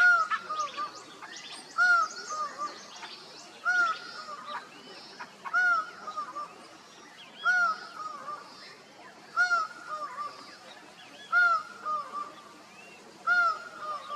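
Laughing falcon calling: a loud arched note followed by two or three softer ones, the phrase repeated about every two seconds, with faint high chirping of other birds behind it.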